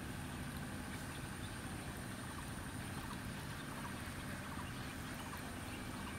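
Outdoor rural ambience: a steady low hum with a thin high whine and faint scattered ticks.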